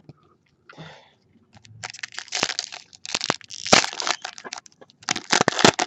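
Plastic or foil wrapping crinkling and crackling in sharp, irregular bursts starting about two seconds in, as a trading-card pack wrapper is handled and opened.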